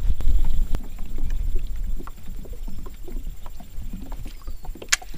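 Water lapping and plinking against a small boat's hull, under a low rumble of wind on the microphone that is heaviest in the first two seconds. A single sharp click comes near the end.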